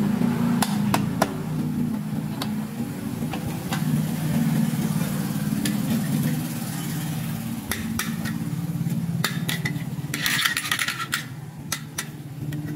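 Hard plastic toy pieces clicking and tapping as they are handled, with a brief rustle about ten seconds in, over steady low background music.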